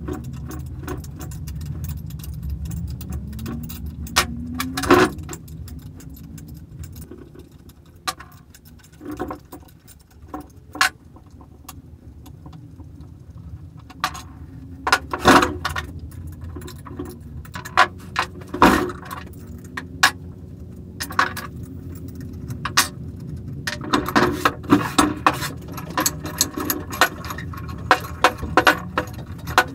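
Steel-on-steel clinks, clicks and knocks from hand tools and small screws as an old bench vise is taken apart by hand, its jaw plates and screws set down on a wooden board. The knocks are scattered, thicken into a run of quick clinks near the end, and sit over a steady low hum.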